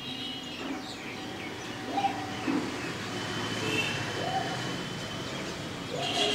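Short bird calls, a few brief chirps and rising-then-falling notes, over a steady background hum.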